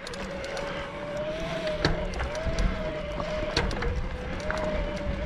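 Electric mountain bike's drive motor whining steadily under load on a climb, its pitch wavering slightly, over a low rumble, with a couple of sharp clicks.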